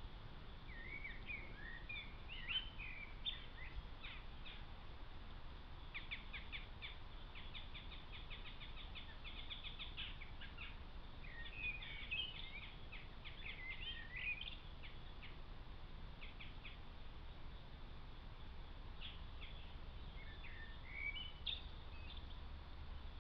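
Small songbirds singing in bursts of chirps, warbled phrases and rapid trills, with a lull about two-thirds of the way through, over a steady low background noise.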